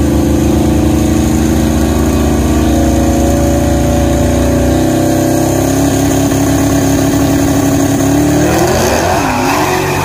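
Drag-racing street car engines held at steady high revs on the start line, the note slowly climbing, then launching about eight seconds in, the pitch bending and wavering as they pull away down the strip.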